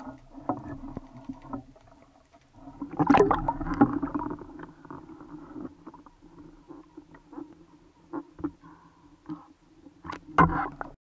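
Water splashing and sloshing around a speargun-mounted camera as the spearfisherman comes up from underwater to the surface, with a loud splash about three seconds in and another near the end. A steady low hum and scattered small clicks run beneath.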